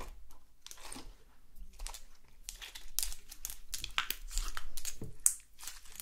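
Clear purple slime being stretched, then squeezed and folded in the hands: a run of small crackles, pops and clicks, busier and louder in the second half.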